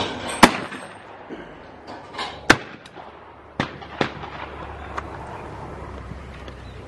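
Shotgun shots at a clay-target range: two loud, sharp reports about two seconds apart, the first about half a second in, followed by several fainter shots.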